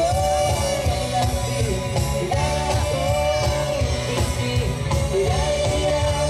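Music with a singing voice and a steady pulsing bass.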